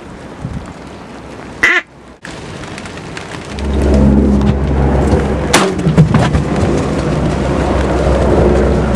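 A single loud duck quack about two seconds in, then wind buffeting the microphone in a steady low rumble from about three and a half seconds on. A sharp crack sounds just after halfway.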